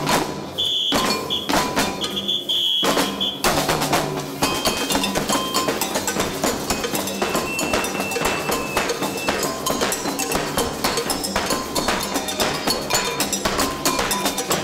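Percussion music: a steady, fast beat of drums and cowbell-like strikes. Short, shrill high tones repeat over the first few seconds.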